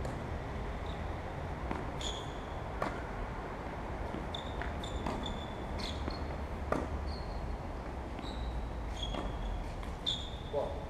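Tennis rally: sharp racket hits and ball bounces, mostly a second or less apart, with short high squeaks of shoes on the court.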